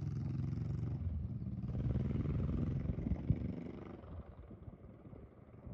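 A motor vehicle's engine running steadily at low speed, fading away about four seconds in. There is a single sharp knock just after three seconds.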